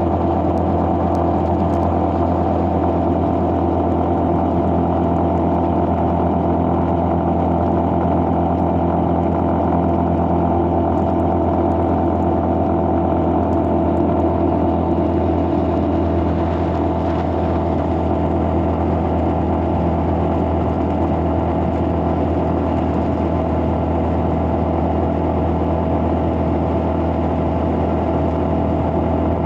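Engine of a road vehicle running steadily at cruising speed, heard from on board with road noise.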